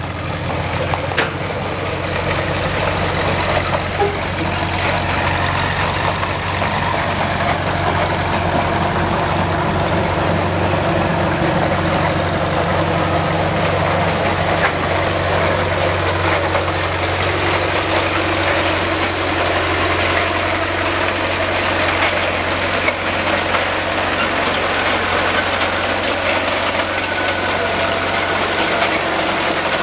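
Heavy vehicle engine running steadily at an even pitch.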